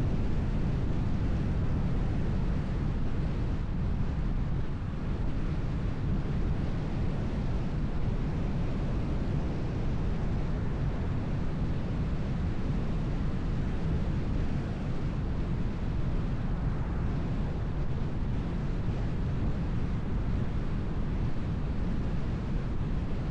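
Steady road noise of a car being driven: a low, even rumble of tyres on the road, mixed with wind noise.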